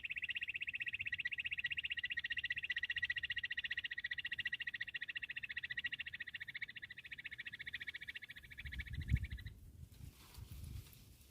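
Bush quail calling: a long, fast, even trill of high pulsing notes that stops about nine and a half seconds in. A few low thumps come just before and after it stops.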